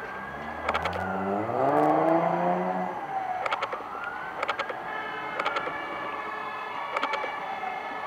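Wailing fire-engine siren, its pitch rising and falling slowly about every four seconds. Over the first three seconds a car engine accelerates past on the wet road, louder than the siren. Short clicks come now and then.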